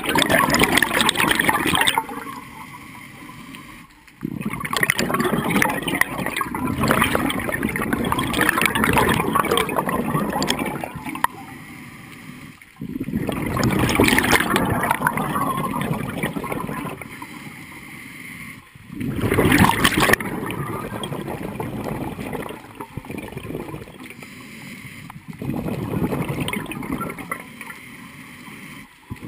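Scuba diver's regulator breathing underwater: five bursts of bubbling exhaust from the exhalations, roughly six to nine seconds apart, with quieter gaps between them as the diver inhales.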